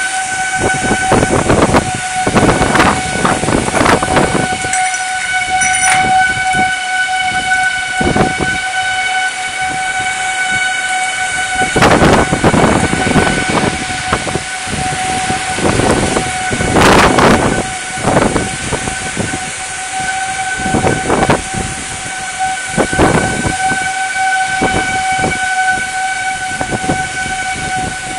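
Tornado winds gusting in repeated loud surges, over a steady high whistle-like tone held throughout.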